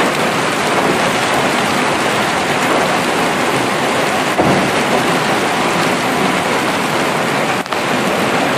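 Hailstorm: hailstones falling steadily and densely on the stones and rails of a railway track.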